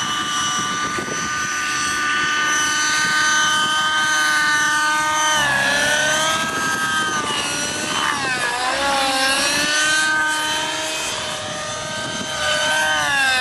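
Align T-Rex 600 Nitro RC helicopter's glow engine and rotors running at high speed in flight, a steady high whine that swoops down and back up in pitch about five and a half and eight seconds in as it manoeuvres, and drops again near the end.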